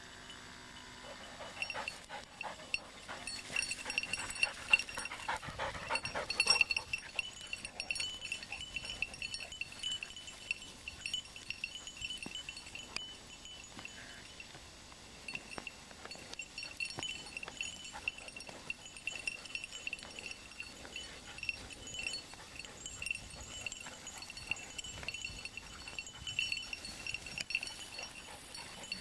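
The bell on a hunting dog's collar jingles on and on as the dog works through dry grass and brush, a high, flickering ring. Rustling through the vegetation is loudest in the first several seconds.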